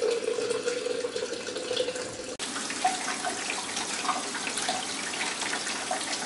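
Photographic fixer running from a tank tap into a one-liter plastic beaker, with a steady pitched note as it fills; about two seconds in this changes abruptly to the fixer being poured from the beaker into a plastic tray, splashing.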